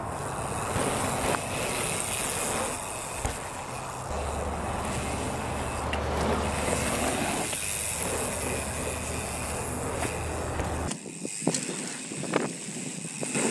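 Mountain bike riding on a dirt trail: a steady rushing noise with a low rumble. About eleven seconds in it changes abruptly to the closer sound of tyres rolling on dirt, with a few sharp clicks and rattles from the bike.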